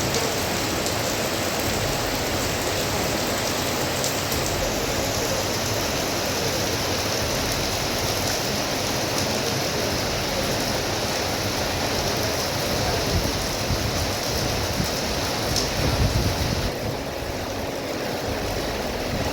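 Monsoon rain and running water making a steady rushing noise, which shifts in tone about four and a half seconds in and again a few seconds before the end.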